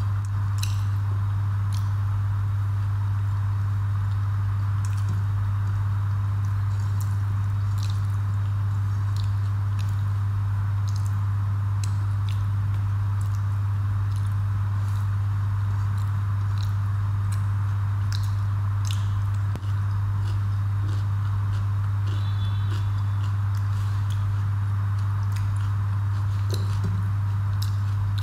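Close-up eating sounds of a person chewing rice and dal by hand: soft wet clicks and smacks scattered irregularly, over a loud steady low hum.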